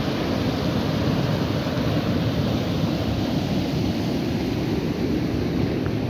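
Swollen, muddy floodwater rushing over a low rocky waterfall and through rapids: a steady, even rush of water.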